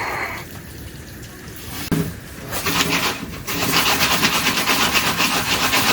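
Jiffy Pop foil pan being shaken back and forth on a wood stove top, a fast steady rasping scrape that starts about two and a half seconds in, before the kernels have begun to pop.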